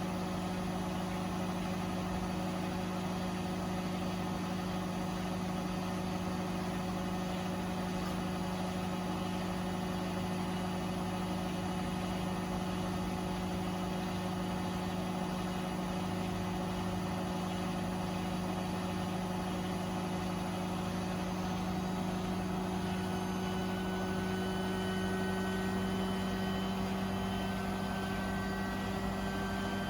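Beko WTK104121A washing machine spinning: a steady motor hum, with a higher whine that climbs slowly in pitch over the last several seconds as the drum speeds up.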